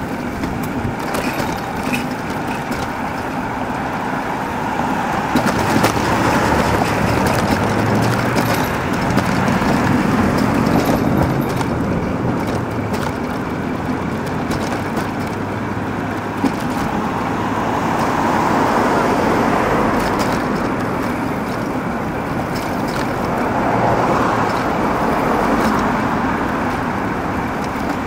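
City street traffic noise: a steady wash of road noise, with passing motor vehicles swelling up and fading away several times.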